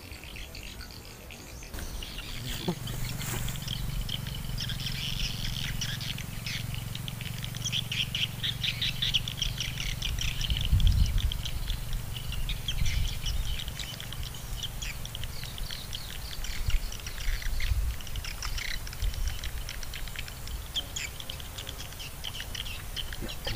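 Birds chirping and trilling in a steady busy chorus, over a low uneven rumble that sets in about two seconds in.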